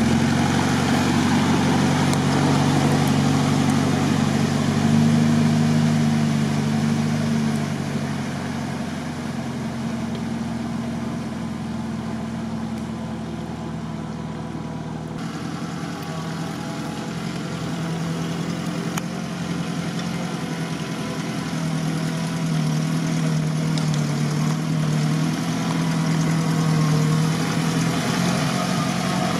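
Mitsubishi Pajero engine running as it drives through a muddy creek, its wheels splashing through the water, the sound fading as it moves away. About halfway through, after a cut, a UAZ's engine runs steadily while standing in the water.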